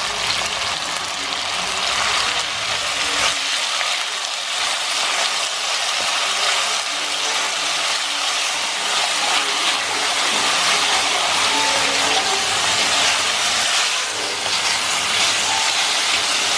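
Beef pieces sizzling steadily in hot sesame oil in an enamelled cast-iron pot, stirred now and then with a wooden spoon as the meat browns.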